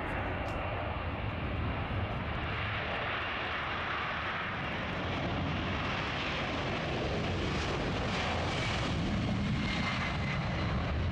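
Twin jet engines of a Boeing 767 at takeoff thrust on its takeoff roll, a steady rushing noise that grows a little louder toward the end.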